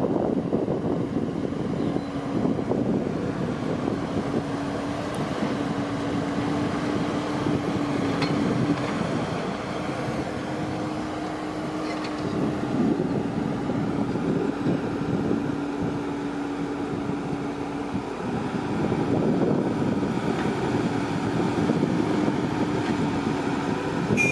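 Farm machine engine running steadily, with a constant hum that drops out briefly a few times, and wind noise on the microphone.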